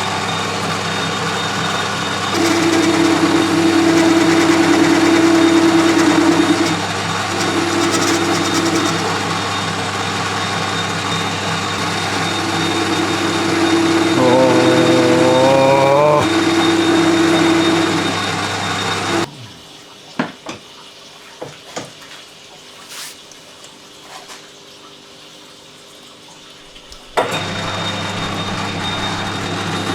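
A workshop machine tool running steadily with a low hum, while a loud ringing tone comes and goes over several seconds and rises in pitch once. About two-thirds of the way in the machine stops abruptly, leaving a few clicks and knocks, then starts up again abruptly near the end.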